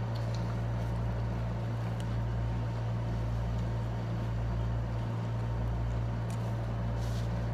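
Window air conditioner running with a steady low hum, with a few faint clicks over it.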